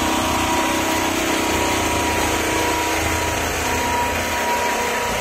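Engines of procession vehicles running steadily at close range, with a thin high tone that fades out and comes back about two-thirds of the way through.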